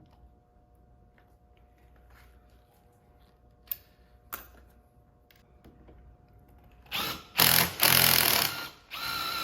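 Electric drill driving a screw extractor bit into a stripped brake master-cylinder cap screw, starting about seven seconds in with a few short loud bursts and then a steady whine. Two sharp clicks come before it.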